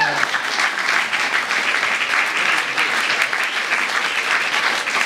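A roomful of seated dinner guests applauding, a dense, even clatter of many hands clapping.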